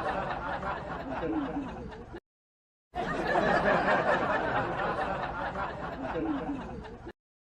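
A group of people laughing. The stretch cuts off abruptly about two seconds in, goes silent briefly, then plays again and cuts off again near the end.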